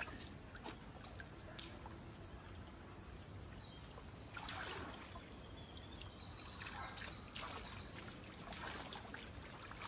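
Faint river water splashing and trickling as a man scrubs an elephant standing in the water, with a few louder splashes about halfway through and again near the end.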